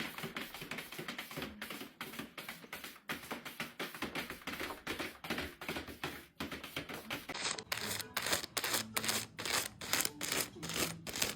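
A fast run of short clicks or taps, about five a second, growing sharper and brighter about seven and a half seconds in.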